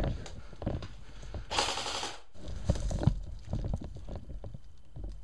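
Footsteps and dry brush and leaf litter rustling against the moving player, with a scatter of short knocks and snaps. About a second and a half in, a loud rushing burst lasts under a second.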